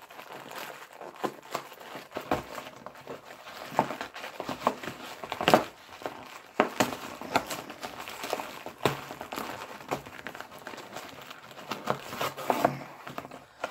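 Cardboard Twinkies box being forced open by hand: irregular crinkling and tearing of the paperboard flaps, with the loudest rip about halfway through. The box is stubborn and won't come open easily.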